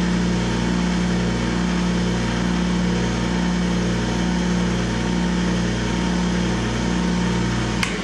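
Small wood lathe motor running with a steady hum as a cloth buffs wax off a spinning pen barrel. The hum stops with a sharp click near the end.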